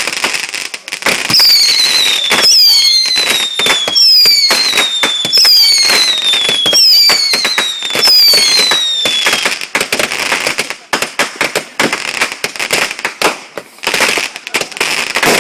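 Fireworks going off: dense crackling pops throughout, with a run of about six high whistles, each falling in pitch, starting about a second in. The whistles stop about two-thirds of the way through, and the crackling goes on.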